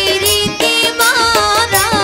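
Live Bengali Baul folk music: a wavering melody over steady held notes, with regular hand-drum strokes whose low notes bend in pitch.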